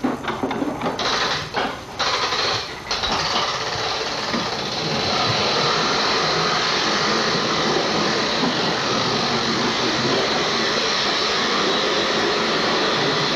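Hard plastic wheels of Big Wheel-style low-rider tricycles rolling on a concrete floor, a steady grinding rumble. It breaks off briefly a few times in the first three seconds, then runs on unbroken.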